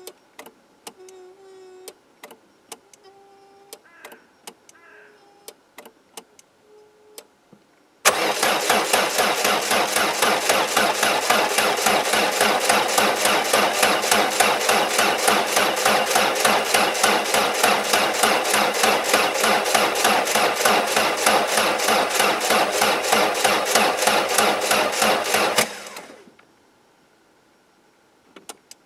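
Peugeot 205's 1.4-litre TU3 single-point-injection petrol engine being cranked over by its starter for a cold start at about −10 °C on jumper leads. The cranking comes in suddenly about eight seconds in, pulses evenly and loudly for some eighteen seconds without catching, then dies away. Faint ticking comes before it.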